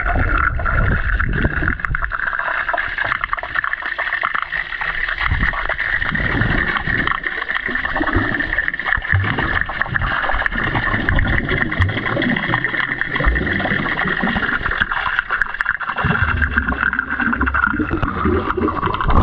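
Underwater sound of a swimming pool picked up by a submerged action camera: muffled, steady water noise with a high hum, with low gurgles and thumps from swimmers moving and bubbles rising.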